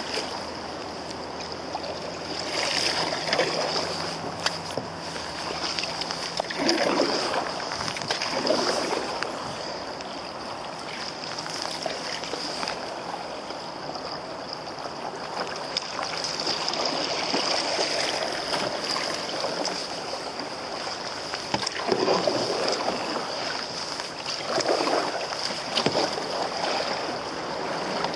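Moving river water running and lapping against the hull of an open canoe, a steady rushing with a few brief louder splashy swells.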